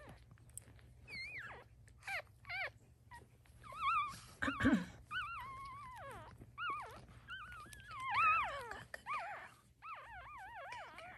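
Newborn chocolate Shih Tzu puppies crying: a string of short, high, wavering squeals, several overlapping, starting about a second in. A brief bump near the middle.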